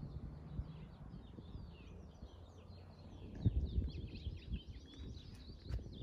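Many small songbirds chirping and twittering together in quick, high notes, growing busier about two seconds in. Under them a low rumble with a couple of dull thumps.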